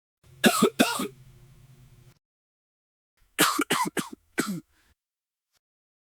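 Two variations of an awkward-moment comedy sound effect. First, two short falling tones with a low hum trailing off. Then, about three seconds in, a run of four short notes that slide downward.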